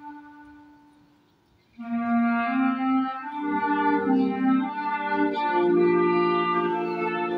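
Middle school concert band playing: a soft held note fades away to a brief hush. The band then comes in together about two seconds in, with lower instruments joining a second or so later to fill out a loud, sustained chorded passage.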